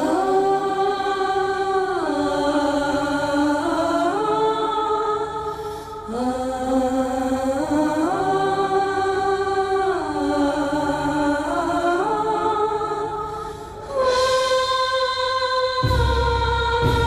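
Background film music: slow, long held notes that step up and down in pitch in phrases of about two seconds, with a deep bass note coming in near the end.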